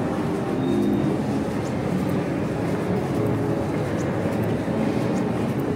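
Steady hubbub of a crowd in a busy indoor public space: many overlapping voices with scattered light clicks and clatter.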